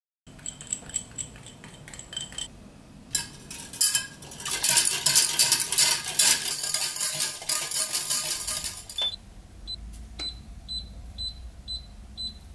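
A wire whisk clattering quickly against the inside of a stainless steel pot as milk is whisked, after a few ringing metallic clinks. Near the end, a glass-top electric hob's touch controls give a run of short beeps, about two a second, as its timer is set.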